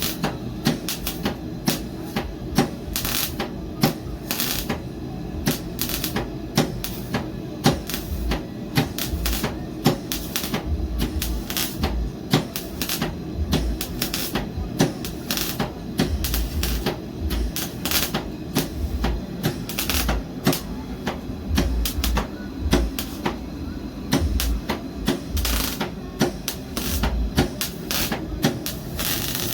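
MIG welder arc crackling and spitting: a dense run of sharp irregular clicks and pops, several a second, over a low hum, as weld is laid to fill a gap.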